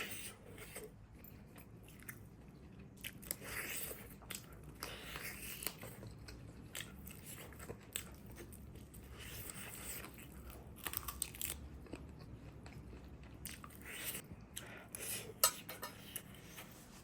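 A person chewing and biting food close to the microphone, with irregular crunchy bites and sharp clicks.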